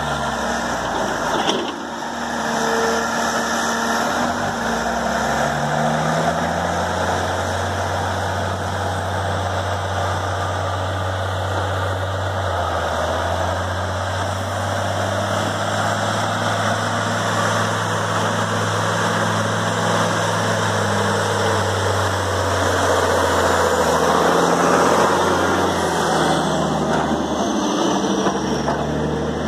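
Diesel engine of a loaded articulated dump truck running as it drives up and passes close by, the engine note stepping up and down a few times and growing loudest a few seconds before the end.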